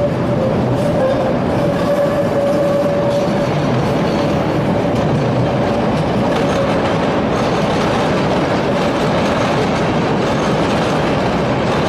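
Train rolling over a rail diamond crossing: loud, steady rolling noise with dense wheel clatter over the crossing gaps. A thin high whine runs through the first three seconds or so.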